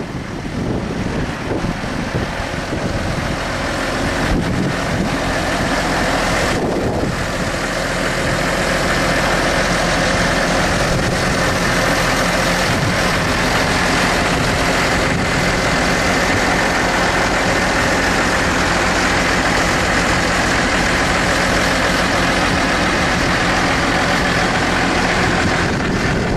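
Case IH Puma 155 tractor's six-cylinder diesel engine idling steadily, getting louder a few seconds in.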